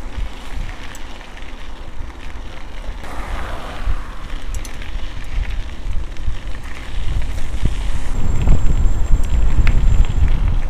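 Wind buffeting the microphone of a moving bicycle ride, a low rumble that grows louder over the last few seconds, mixed with tyre noise on the path and a few small clicks and rattles from the bike.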